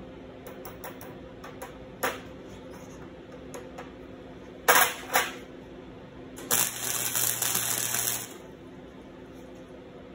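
Steel chain links clink sharply a few times as they are set in place with pliers. A short welding tack follows, a buzzing crackle lasting nearly two seconds, with the welder turned down to low heat for thin metal. A steady hum from the welding machine runs underneath.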